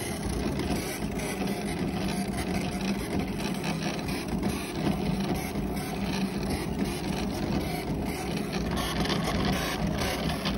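Ioline twill cutter running, its carriage motors whirring with a steady hum as the blade head moves over the twill cutting out patch shapes.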